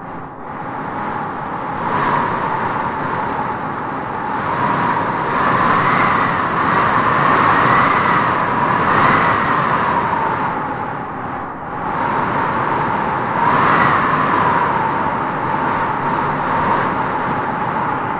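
Strong wind howling, a steady rushing with a hollow whistling tone that swells and fades in repeated gusts.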